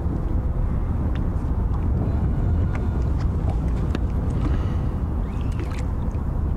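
Wind buffeting the microphone in an open boat, a steady uneven low rumble, with a few faint clicks from the fishing gear.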